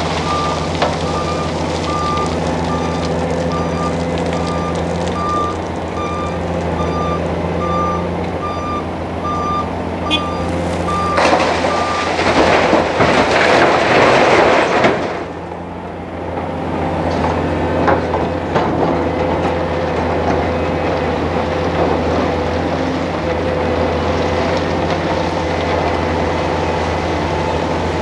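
Heavy diesel machinery running steadily, a Hitachi hydraulic excavator working beside a dump truck, with a back-up alarm beeping in a regular rhythm for the first ten seconds or so. Midway, the excavator dumps a bucket of broken rock into the truck's steel body: a loud rattling crash lasting a few seconds. The engines then carry on running.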